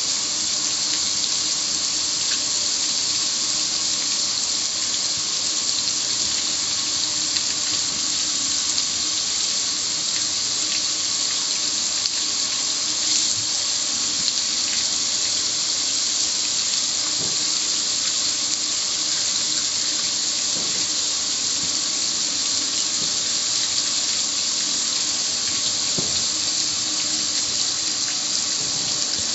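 Water from a garden hose spraying steadily onto a metal gas grill and splashing and running off it, a constant rushing hiss.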